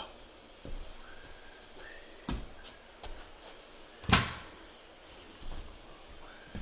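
A hammer striking a nail in a few separate, irregular blows, the loudest about four seconds in.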